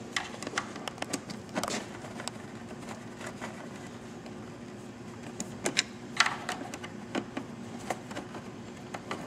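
Irregular light clicks and taps of a 4 mm Allen wrench and hands working the bolts of a motorcycle fairing speaker, with a louder cluster of knocks about six seconds in, over a steady low hum.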